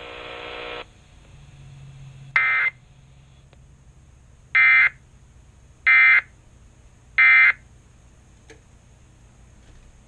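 Emergency Alert System end-of-message sent by a TFT EAS 911 encoder: three identical short bursts of screechy data tones, evenly spaced about a second and a half apart, marking the end of the alert. Before them, a steady buzzing tone stops about a second in, and a single shorter tone burst comes at about two and a half seconds.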